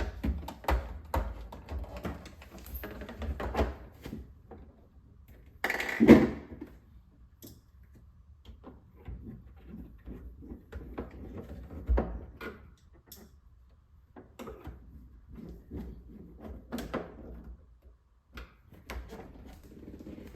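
Irregular knocks, clicks and rattles of refrigerator parts being handled and fitted back in place, with a louder scraping thud about six seconds in and a sharp knock about twelve seconds in.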